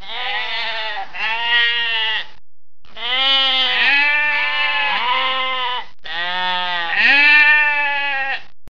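Livestock bleating: a run of about seven wavering, drawn-out calls in three groups with short pauses between, starting and stopping abruptly.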